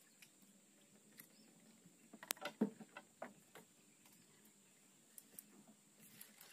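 Faint scattered clicks and taps from fishing tackle being handled in a small boat, a quick cluster of them about two to three and a half seconds in.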